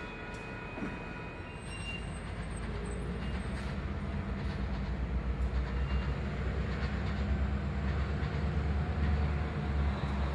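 EMD diesel switching locomotive running, its deep engine rumble growing louder from about two seconds in. A few light clicks come in the first few seconds.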